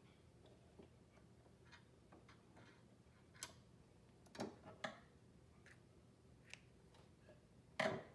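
A few light, scattered clicks and taps of hands handling the Janome 2212 sewing machine's parts around the needle plate and bobbin area, with the sharpest click near the end.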